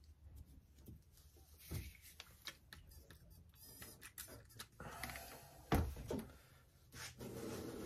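Faint scrapes and light taps of a putty knife working ready-mixed joint compound, with a louder knock about six seconds in. A steady low hum comes in near the end.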